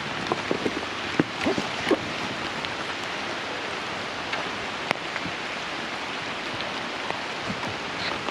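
Steady rain falling on leaves and stone, with a few sharper taps and drips standing out, the strongest about a second and two seconds in and again near the middle.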